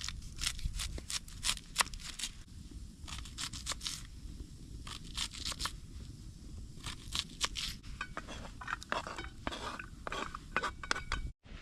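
Knife cutting a raw onion: crisp crunching cuts in quick runs with short pauses between.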